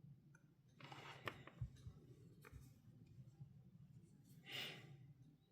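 Near silence, with faint handling noise: a soft scratchy rustle about a second in, a few light clicks, and another brief rustle near the end.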